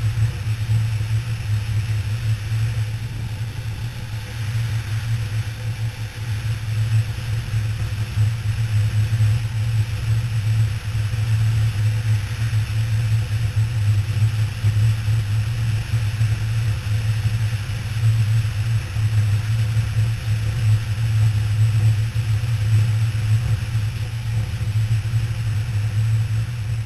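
KTM 990 Adventure R's V-twin engine running steadily at cruising speed, mixed with steady wind rush on a helmet-mounted microphone.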